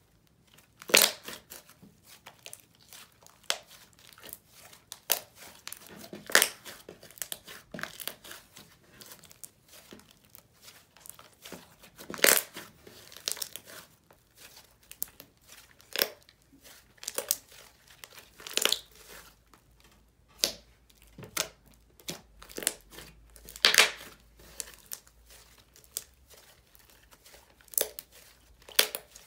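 Hands squeezing, stretching and poking slime, making irregular sharp crackling clicks and pops, a few a second, with louder pops now and then.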